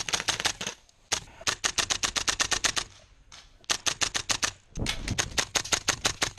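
Tokyo Marui M4 MK18 gas-blowback airsoft rifle firing full-auto: runs of sharp cracks at about a dozen a second, broken by short pauses about one second and three seconds in.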